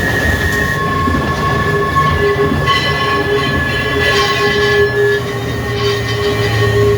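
Vintage electric tramcar running along the line, a steady rumble of wheels on rail with several high steady whining tones over it.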